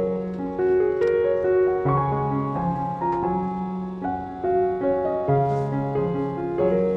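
Background piano music: slow chords and melody notes, each held for a second or so.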